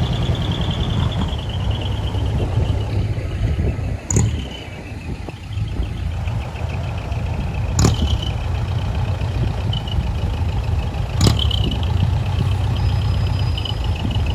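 Diesel engine of a small decorated flatbed truck running at low speed as it rolls slowly past, with three short sharp sounds about four seconds apart. A faint rapid high-pitched pulsing runs underneath.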